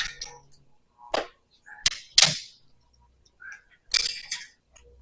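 Sharp knocks and clinks of metal parts and tools being handled, a handful of separate strikes with the loudest a little past two seconds in.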